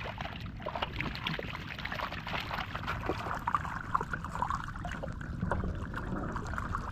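Shallow muddy floodwater running and splashing, with irregular splashes as catfish thrash in it and are grabbed by hand.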